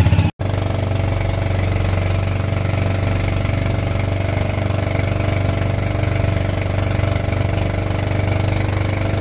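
Outrigger boat's engine running at a steady cruising pace, a constant drone, after a brief break in the sound near the start.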